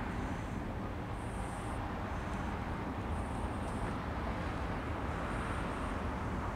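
Boeing 747-400 jumbo jet's four turbofan engines at climb power just after takeoff, heard as a steady deep jet noise from the aircraft climbing away.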